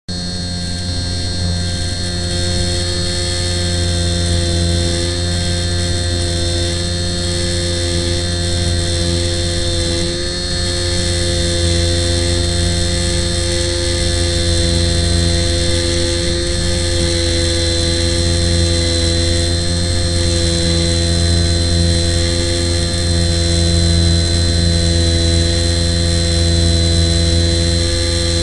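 Model airplane motor and propeller running at a steady throttle: a constant whine over a low hum that holds its pitch throughout.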